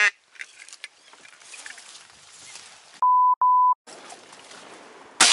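Faint wind through the reeds, cut about three seconds in by a steady 1 kHz censor bleep in two short pieces with the sound muted around it. Near the end, a single loud shotgun shot.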